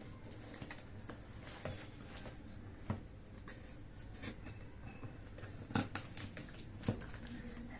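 A box and its packaging being handled and opened: scattered light rustles and clicks, with a few sharper taps about three seconds in and twice near the end.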